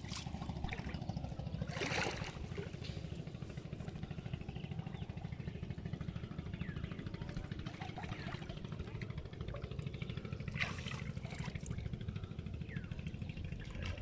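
Water splashing and trickling as a fishing net is worked in shallow river water, with two louder splashes, over a steady low rumble.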